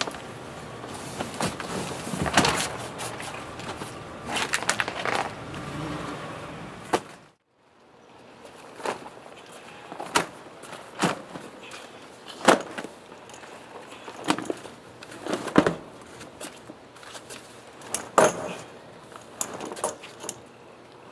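A deflated Saturn SK470 inflatable boat being pulled from its box, rolled along a wooden dock and unrolled: its PVC fabric rustles, with scattered knocks and thuds from its fittings and handles on the decking. A brief gap about seven seconds in.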